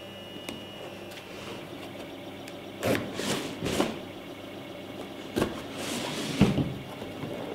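A large fixed-blade knife slitting the packing tape on a cardboard box: several short scraping rips, the first about three seconds in and more in the second half, with cardboard being handled between them.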